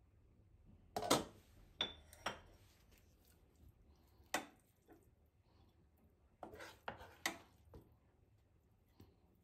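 Kitchen dishes and utensils clinking and knocking: about nine separate strikes, unevenly spaced, one with a brief metallic ring.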